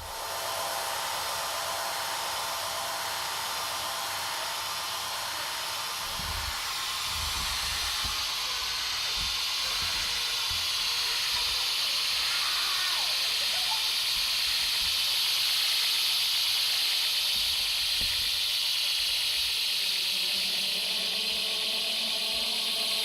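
Electronic noise music: a dense wall of hiss that grows brighter and stronger in the upper range from about ten seconds in, with scattered low thuds through the middle and low droning tones coming in near the end.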